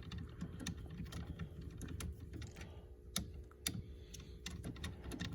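Irregular sharp clicks and ticks of a hand screwdriver turning Phillips screws out of a plastic steering-column cover plate. The two loudest clicks come a little past the middle.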